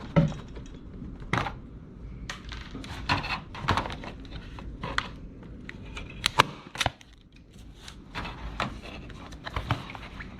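A series of sharp, irregular knocks and snaps, about a dozen spread unevenly, from a tool fastening material to a plastic tub lid.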